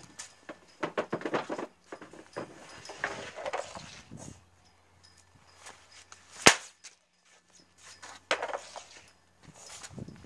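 Street hockey shots: a sharp crack of a hockey stick striking a shot about six and a half seconds in, with lighter stick taps and scraping on the pavement in the first few seconds and a smaller clatter about two seconds after the shot.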